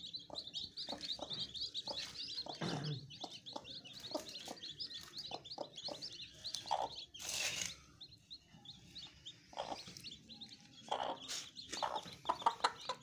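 Newly hatched chicks peeping in quick, continuous high chirps, with a broody hen's low clucks among them and a brief rustle about seven seconds in. Near the end come rapid ticks as the hen pecks grain from a hand.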